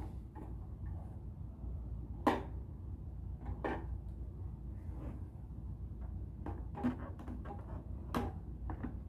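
Parts of a new vacuum cleaner being handled and fitted, giving scattered clicks and knocks, the loudest about two seconds in and a run of them near the end, over a steady low hum.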